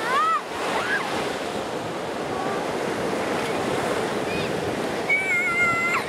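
Atlantic surf breaking and washing up the sand in a steady rush. A few short high-pitched cries rise and fall over it about a second in, and a held high cry sounds near the end.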